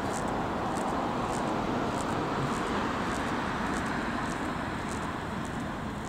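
Road traffic noise: a vehicle passing, its tyre and engine noise swelling to a peak around the middle and easing off near the end.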